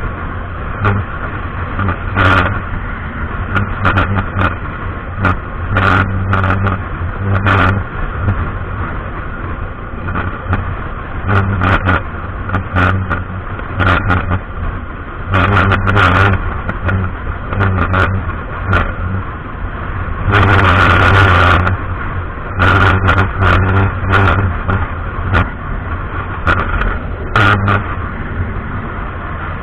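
Motorbike riding at highway speed: a steady engine drone under irregular swells of wind noise on the handlebar-mounted microphone, with a longer, louder gust about two-thirds of the way through.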